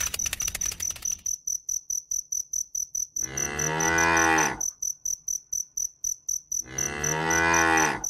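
Cattle mooing twice, each a long low call of about a second and a half, over the steady high chirping of crickets at about four chirps a second.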